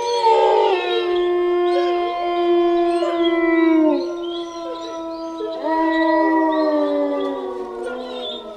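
Wolves howling: long, held howls with more than one voice overlapping. One howl slides down in pitch about four seconds in, and another rises about six seconds in, then sinks slowly lower toward the end.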